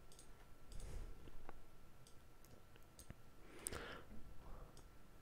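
Faint, scattered clicks of a computer mouse and keyboard, with a brief soft hiss a little past the middle.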